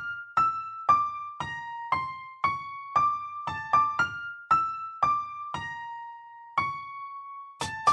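Outro music: a simple melody of single struck keyboard notes, about two a second, each ringing and fading, with a quicker, brighter run of notes starting near the end.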